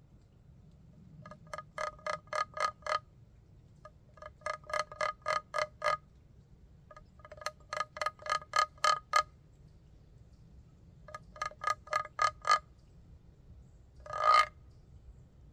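Wooden box call stroked by hand, giving four quick runs of five to eight short squawking notes, then one longer single note near the end.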